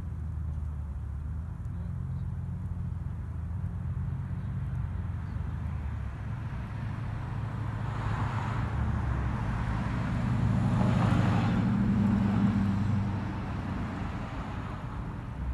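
Road traffic going by: a steady low rumble of passing cars, swelling twice in the second half as vehicles pass closer, the louder one near the end.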